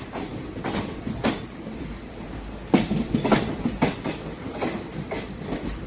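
Train wheels clacking over the rail joints, heard from on board the moving train: an irregular run of sharp knocks over a steady low rumble, thickest about three to four seconds in.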